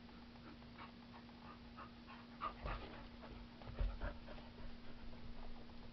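Dog panting in short quick breaths, over a steady low hum, with a few louder thumps of movement between about two and a half and four seconds in.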